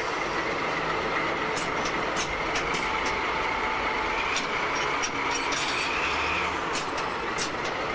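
Diesel locomotive running steadily at a standstill, with a scatter of short, sharp metallic clinks from work at the coupling between the locomotive and a railway car during shunting.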